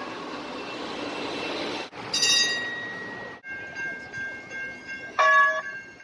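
Light rail and transit vehicle warning sounds in quick succession: a steady rushing noise, then about two seconds in a train bell struck once and ringing on. After a cut, a held ringing bell tone, with a short loud horn honk near the end.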